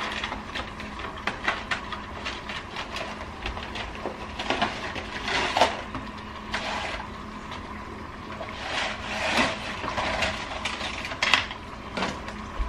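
Dry lasagna noodles rattling in their cardboard box and being handled and dropped into a pot of boiling water: scattered clacks, rustles and knocks.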